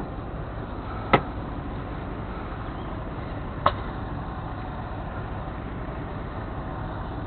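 Diesel truck engine idling steadily, with two sharp clacks, one about a second in and one just past halfway.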